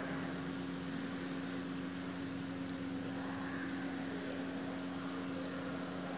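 A steady low hum with two constant tones over an even background hiss.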